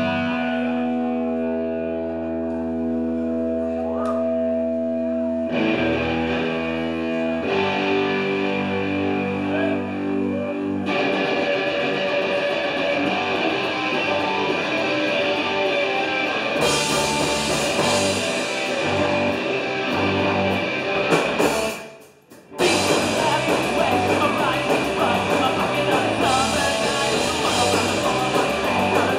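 Punk band playing live: electric guitars ring out held chords that change a couple of times, then about eleven seconds in the full band comes in with drums and crashing cymbals. About three-quarters through the band stops for under a second, then crashes back in.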